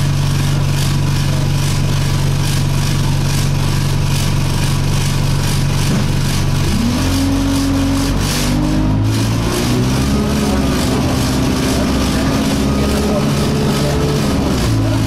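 Alexander Dennis Enviro200 single-deck bus engine heard from inside, idling steadily, then pulling away about six and a half seconds in, its pitch rising in steps. The bus carries an annoying vibration sound throughout.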